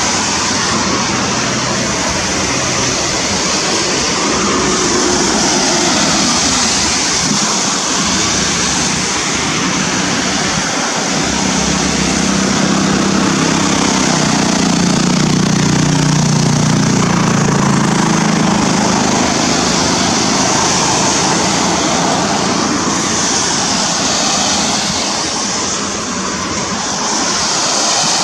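Steady rushing noise of river water and wind blowing across the microphone. A low hum swells and fades in the middle.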